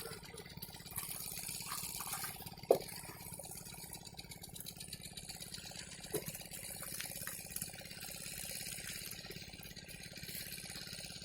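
Faint water trickling and splashing, with a few short splashes or knocks; the sharpest is about a quarter of the way in and another comes about halfway.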